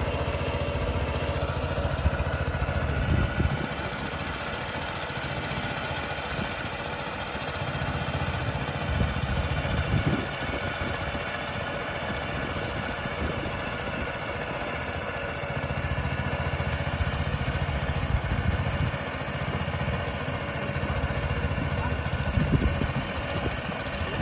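Small engine of a water pump running steadily at an even speed, pumping water out of the pond. A deeper rumble underneath swells and fades several times.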